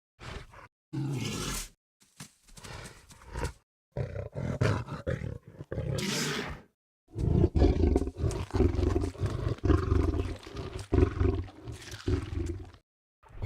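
Deep, rough roars and growls from a large animal, in separate stretches that stop abruptly into silence, the longest near the end.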